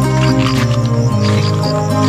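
Background music of sustained, shifting low notes with a light high repeating tap over them.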